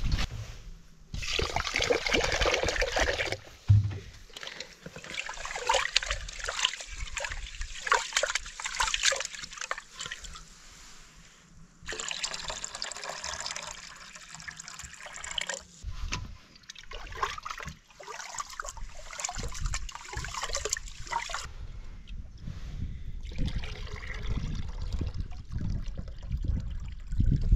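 Water pouring and trickling in several bursts of a few seconds each, with short pauses between, as rice is rinsed for cooking.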